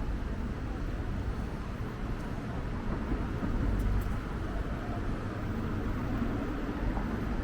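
Wind buffeting the microphone in a steady, uneven low rumble, over city street traffic.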